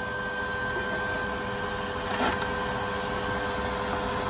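Steady machine hum holding a couple of faint steady tones, with a light knock about two seconds in.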